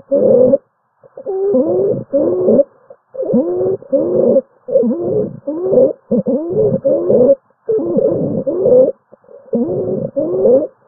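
Stridor: pitched, noisy breath sounds from a narrowed upper airway, coming in pairs about every second and a half, each sound sliding in pitch. It is the sign of upper-airway obstruction.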